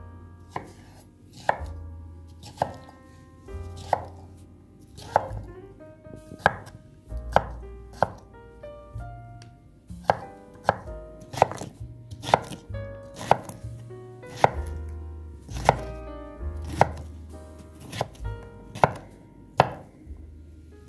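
Kitchen knife chopping cucumber on a wooden cutting board: sharp knocks of the blade on the board about once a second, over background music.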